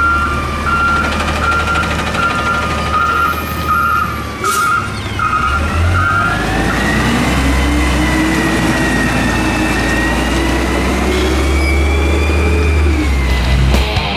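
Backup alarm of a natural-gas Freightliner M2 garbage truck beeping steadily as it reverses, stopping about six seconds in. The engine then rises in pitch as the truck pulls forward and drives off, its sound dropping away near the end.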